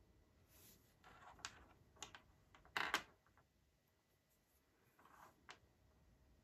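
Small plastic clicks and light taps as earbuds and a charging case are handled and set down on a wooden tabletop, with a little brief rustling between them. The loudest is a quick double click about three seconds in.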